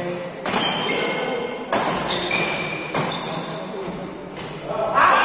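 Badminton rackets striking a shuttlecock during a rally, four sharp hits about every 1.3 seconds, each echoing in a large hall.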